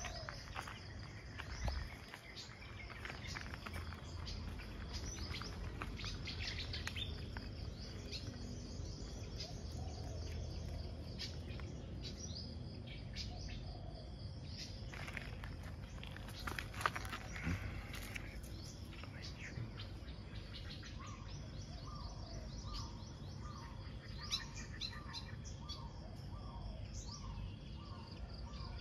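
Several birds chirping and calling over a steady outdoor background hum. Near the end, a bird repeats a short note about three times every two seconds. A single sharp click comes about two-thirds of the way through.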